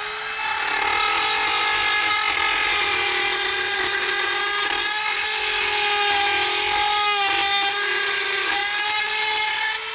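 Dremel rotary tool running at a steady high-pitched whine as it trims a corner of the radio cut-out in the dash. Its pitch dips briefly a few times as the bit bites into the material.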